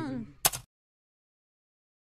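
A man's falling exclamation trails off, a single sharp click follows about half a second in, and then the sound cuts out to dead silence.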